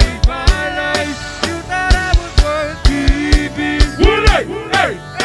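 Instrumental break of a band song: a drum kit keeps a steady beat under a melodic lead whose notes glide up and down.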